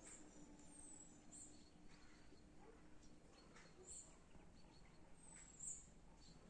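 Faint, very high-pitched bird chirps repeating every second or so, with a couple of short falling whistles, over a low background hiss.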